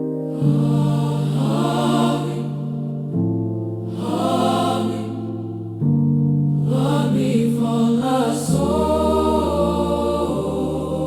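Gospel choir singing slow, held chords over a low bass line, the harmony moving to a new chord about every two to three seconds.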